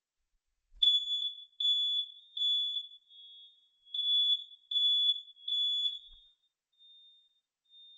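Combined smoke and carbon monoxide detector under test, sounding its high-pitched fire-alarm pattern: three loud beeps, a pause, and three more. A few faint short beeps follow near the end.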